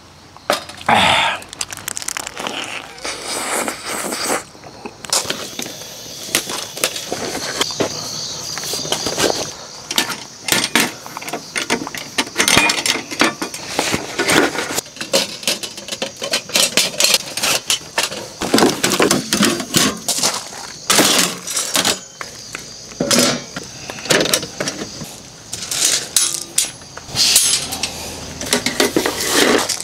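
Irregular sharp clicks, clinks and knocks of small hard objects, coming thick and fast, over a faint steady high-pitched hiss.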